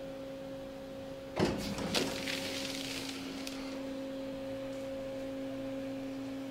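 Elevator doors sliding open, with a clunk and rattle about a second and a half in, over a steady electrical hum.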